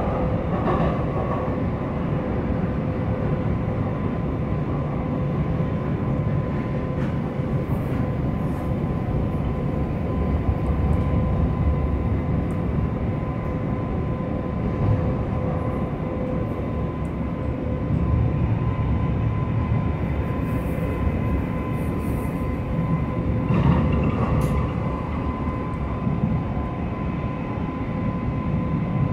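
Sacramento RT light rail train running at speed, heard from inside the car: a steady low rumble of wheels on rail with a constant whine, and a couple of clicks near the end.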